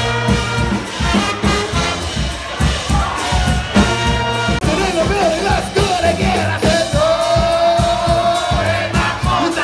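New Orleans-style brass band playing live, with sousaphone, saxophone, trombone, trumpet and drums over a steady beat, and a singer; a long held note runs through the second half.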